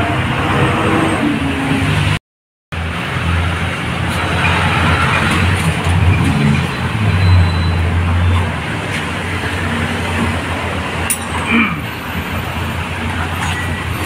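Steady background road-traffic noise with a low engine hum, dropping out for about half a second near two seconds in, and a single sharp click about eleven seconds in.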